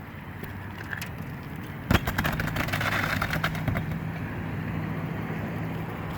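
A motor vehicle driving past, its engine hum swelling and then fading. One sharp knock comes about two seconds in, with a few lighter clicks after it.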